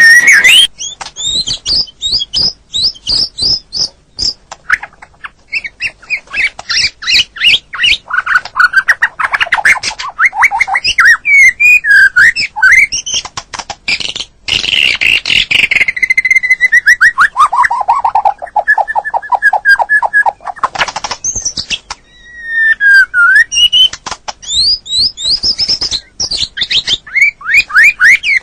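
White-rumped shama singing a long, varied song packed with mimicked phrases: quick trills, whistled glides and dry chattering notes, with a long run of rapid notes falling in pitch in the middle.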